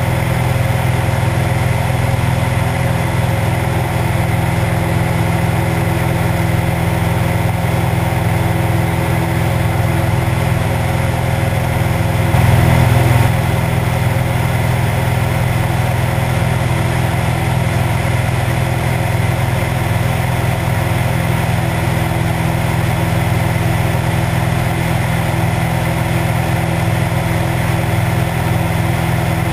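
Cessna 172's piston engine and propeller running steadily in cruise flight, heard from a camera mounted outside the cabin under the wing. The loudness swells briefly about halfway through.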